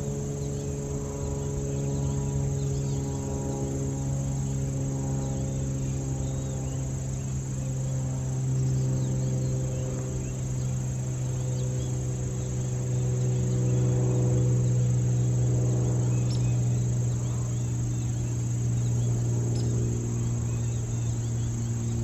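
Steady high trilling of crickets, without a break, over a low, steady drone with several overtones that slowly shifts in pitch.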